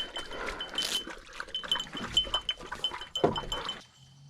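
A bird dog panting and snuffling close by, with a collar bell tinkling in short irregular high notes as it moves. The sound cuts off shortly before the end, leaving a faint low hum.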